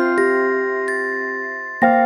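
Gentle lullaby-style background music of glockenspiel-like bell tones, notes struck one after another and left to ring, with a new chord near the end.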